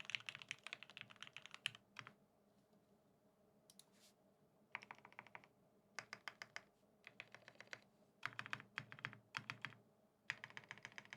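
Typing on a custom BAEBAE TKL mechanical keyboard with lubed OA switches in an aluminium plate and NCR G81-3077SAU keycaps: a fast run of keystrokes at first, then short flurries of keys with pauses between them.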